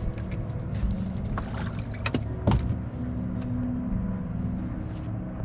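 Boat motor running steadily, with two sharp knocks about two and two and a half seconds in.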